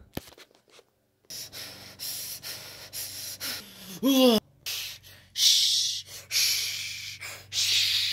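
A person breathing hard in repeated loud gasps close to the microphone, with one short pitched vocal sound about four seconds in.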